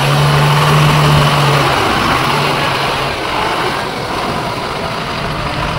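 Engine of an old diesel goods truck running loudly as the truck is driven forward. A steady low drone is strong for the first couple of seconds, then fades.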